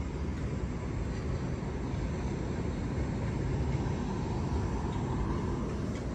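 Steady low rumble of city traffic, swelling slightly about halfway through.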